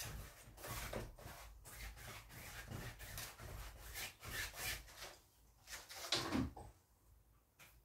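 Painting knife scraping and rubbing acrylic paint across a stretched canvas in a series of short strokes, thinning out to a few scattered rubs near the end.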